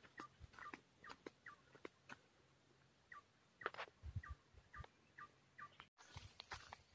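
Faint, quick series of short chirping calls from birds, with a few soft footsteps on a dry dirt path.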